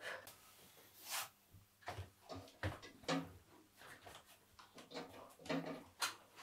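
Soft, scattered clicks and knocks of kitchen handling at a wood-burning stove, about a dozen short sounds spread across the few seconds.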